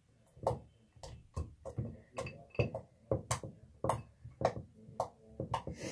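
Clear-glue slime being squeezed and worked by hand, giving a run of short sticky pops and clicks about twice a second.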